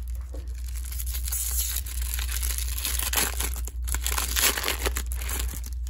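Clear plastic wrapper of a trading-card pack being torn open and crinkled by hand, an irregular crackling that is densest in the middle and later part.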